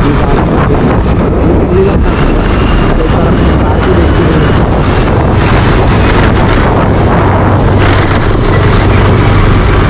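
Motorcycle riding along a street, heard from a helmet-mounted camera: steady wind rush on the microphone over the engine's low, continuous drone.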